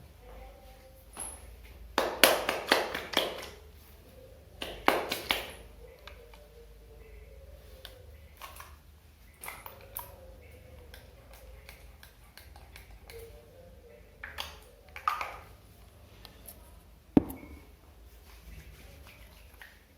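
Wet hair being handled in a hair care routine: rustling strokes in short groups, loudest about two seconds in and again about five seconds in, with a single sharp click near the end.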